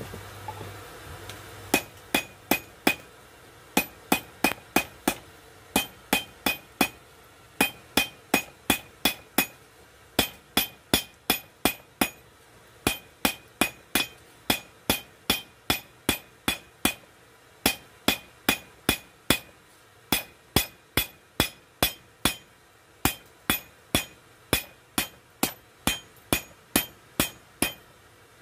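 Hand hammer forging a piece of coil-spring steel on an anvil. From about two seconds in there are runs of sharp, ringing blows, about two to three a second, broken by short pauses.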